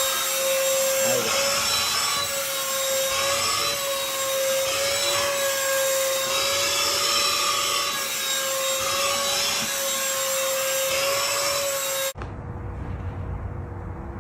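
A small motor running with a steady, slightly wavering whine over a loud hiss. About twelve seconds in it cuts off abruptly to a quieter low rumble.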